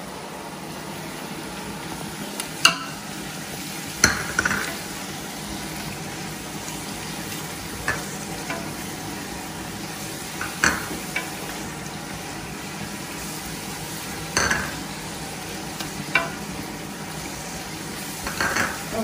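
Onion-tomato masala sizzling in a nonstick pot while a wooden spatula stirs it, with about seven sharp knocks and scrapes of the spatula against the pot, a few seconds apart.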